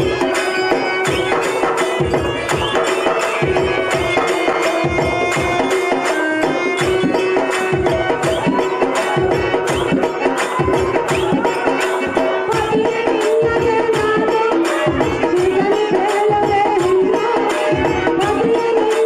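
Live folk-theatre music accompanying a dance: a two-headed hand drum beating steadily under a melody with a held drone note.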